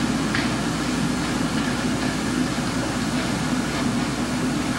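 Steady hiss with a constant low hum, the background noise of an old 1960s film soundtrack.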